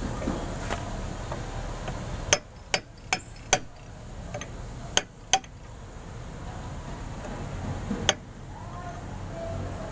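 A hammer strikes the end of a steel drift rod held against a Bajaj RE's front hub, driving a ball bearing into its housing. There are about seven sharp metallic taps, in a quick run of four, then two, then one near the end. A steady low rumble in the background stops just before the first tap.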